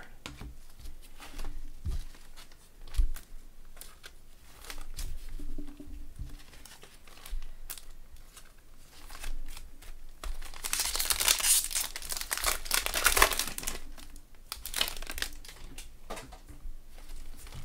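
Thin clear plastic card sleeve crinkling as a trading card is handled and slid into it, loudest for a few seconds a little past the middle. Light clicks and flicks of cardboard cards being sorted run throughout.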